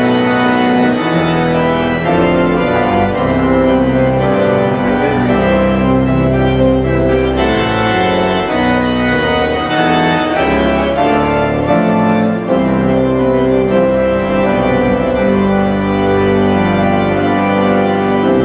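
Organ music playing slow, sustained chords that change every second or so.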